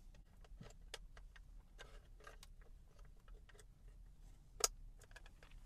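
Faint plastic clicks and taps from a wiring-harness plug being handled and pushed into its socket on a rear-view mirror mount, with one sharper click about four and a half seconds in.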